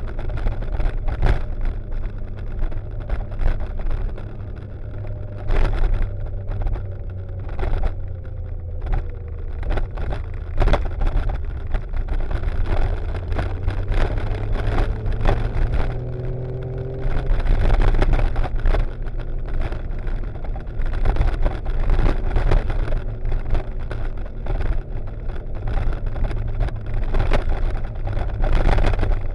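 Motorcycle engine running at road speed, heard from the moving bike with heavy wind rumble and buffeting on the microphone. The engine pitch glides down and then up about halfway through.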